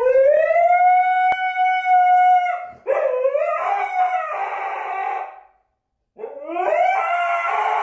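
Husky howling. First comes one long howl that rises and then holds steady for about two and a half seconds. It is followed by a rougher, wavering howl and, after a short pause, another rising, wavering howl near the end.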